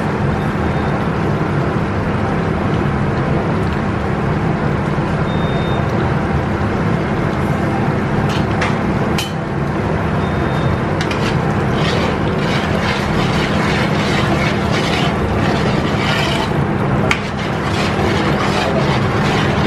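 Steady loud drone of a commercial kitchen's gas range and extraction, with a low hum running under it. A few light clinks of utensils against the metal pot in the second half.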